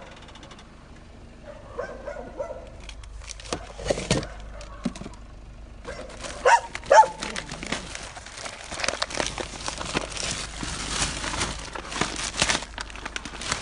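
A dog barking a few times, the two sharpest barks about halfway through, followed by dense rustling and knocking handling noise.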